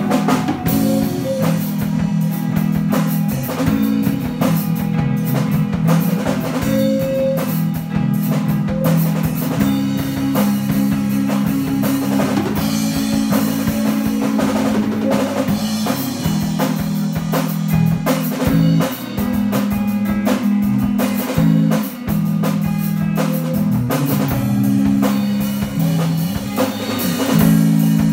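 Live band playing an instrumental passage: a drum kit keeping a steady beat with snare and cymbal hits under electric guitars.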